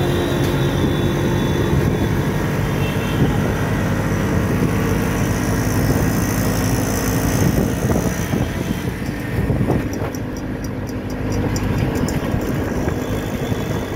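Motor vehicle engine running with the general noise of street traffic, heard from a vehicle moving along a busy city street.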